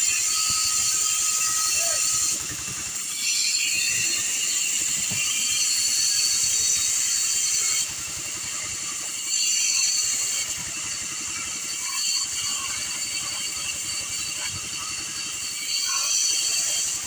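Bandsaw cutting into a thick block of pallet wood: a steady high hiss and whine from the blade, with louder stretches and quieter dips as the load on the cut changes.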